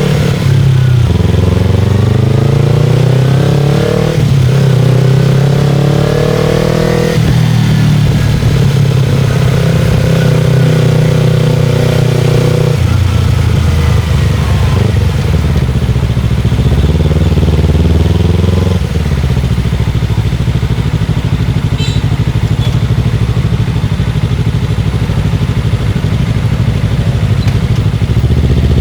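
Motorcycle engine pulling up through the gears: its pitch rises and drops sharply at each upshift, about a second, four seconds and seven seconds in. It then runs at a steady pitch and settles lower twice, near the middle and again about two-thirds through.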